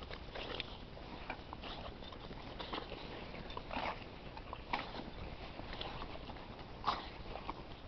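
A dog sniffing and mouthing about in snow, tugging at a sled's rope, with small crunches and scuffs of snow, and a few short louder scuffs around four, five and seven seconds in.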